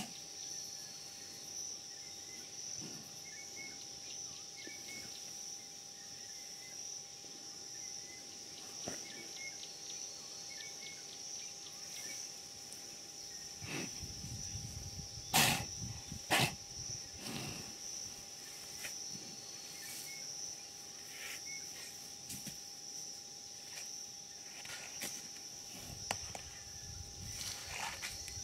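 Steady high-pitched chorus of insects, crickets by the sound of the band, with scattered short sudden noises; the loudest two come close together about halfway through.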